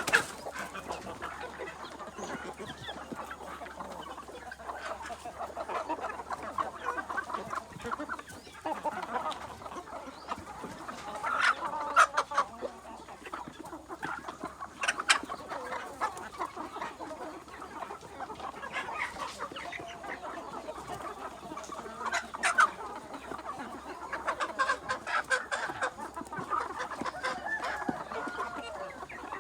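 A flock of Bangkok-cross village chickens clucking continuously, many birds overlapping, with several sharper louder calls scattered through.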